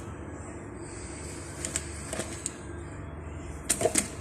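Small bottles and containers being set down and shifted on a fridge shelf: a couple of light clicks around the middle, then a quick cluster of knocks near the end, over a steady low background noise.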